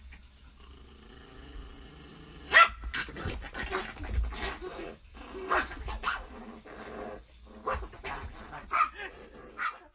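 A dog barking repeatedly, about ten sharp barks, starting about two and a half seconds in. The barks come after a drawn-out lower sound that fits a growl.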